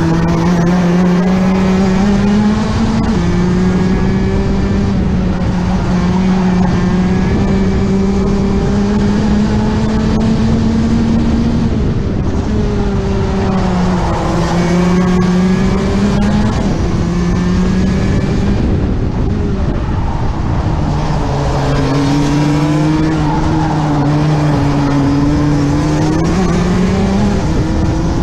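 Rotax two-stroke kart engine heard onboard at race pace, its revs climbing slowly along each straight and falling away sharply when lifting for the corners, several times over.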